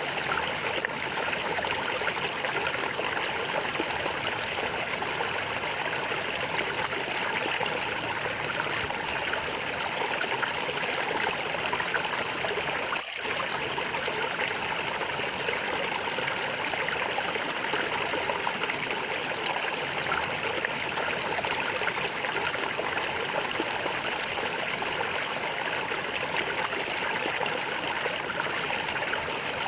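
Flowing water gurgling steadily, with a momentary drop in level about thirteen seconds in.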